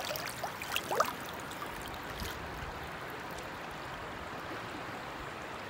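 Shallow river flowing steadily over stones, with a few small splashes in the water in the first second or so.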